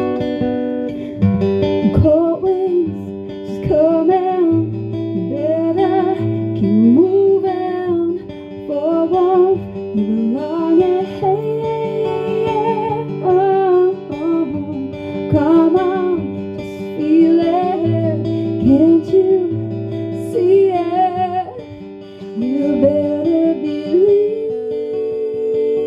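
Live acoustic rendition of a song: a woman singing a long, sliding melody with no clear words, accompanied by a strummed and picked acoustic guitar.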